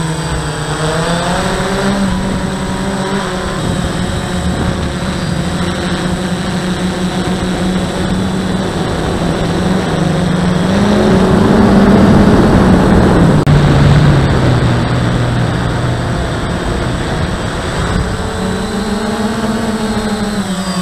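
DJI Phantom quadcopter's motors and propellers buzzing in flight, heard up close from a camera mounted on the drone. The pitch wavers up and down as the motors change speed. About halfway through it gets louder with more rushing noise, then drops lower for a few seconds before climbing back. A thin steady high whine runs underneath.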